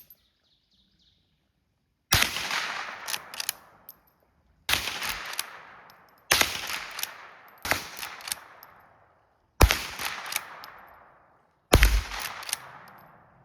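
Henry lever-action .22 LR rifle firing Remington Ranch Hand 40-grain rounds: about five sharp shots, one every couple of seconds, each trailing off in an echo. Fainter clicks and knocks follow most shots.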